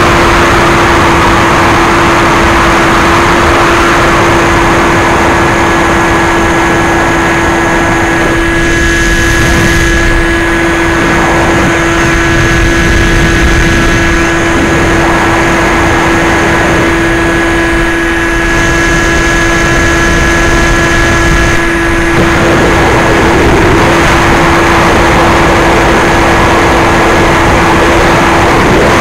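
Electric brushless outrunner motor of a Bixler 2 model plane (NTM 35-30 1400 kv) turning a 9x6 propeller, running at a steady pitch in flight. It is heard from on board the plane, with air rushing over the microphone.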